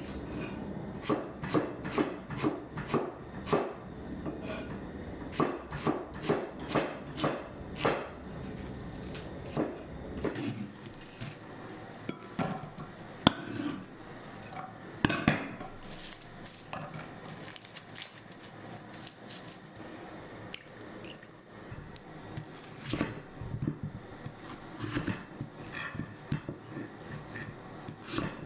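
Cookware being handled: knocks and clatters of utensils against pots, dishes and wood. A run of regular knocks comes about two a second at first, then it thins to scattered clatters, with two sharp clinks near the middle.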